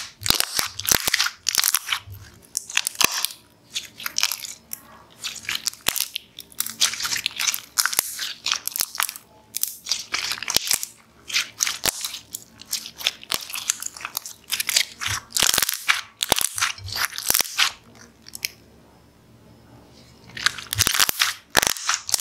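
Thick red slime being stretched, folded and pressed by hand, giving runs of wet clicking and crackling, with a short lull near the end before it starts again.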